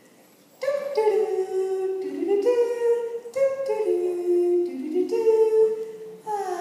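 A voice humming a wordless melody in held notes that step up and down, sliding down in pitch near the end.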